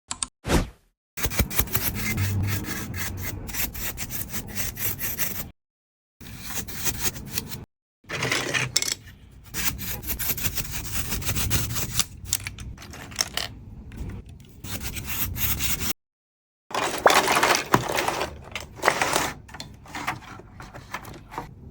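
Rapid brushing and rubbing strokes over plastic Lego pieces as dust is cleaned off them, in several bursts that cut off abruptly.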